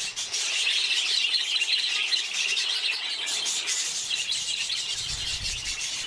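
Budgerigars chattering and chirping together, a steady overlapping twitter of many birds.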